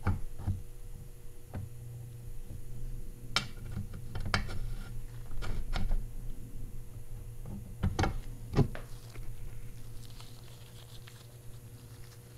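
Scattered light metallic clicks and taps of small parts being handled and fitted: oiled pivot pins going into the shift linkage of a VW 02J-family manual transmission case. The two loudest knocks come close together about two-thirds of the way through, over a steady low hum.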